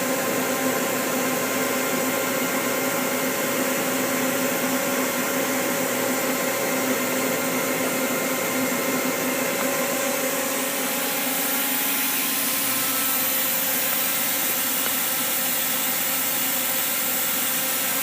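Steady whirring hum of running machinery, with a few constant tones through it. The hum shifts slightly about eleven seconds in.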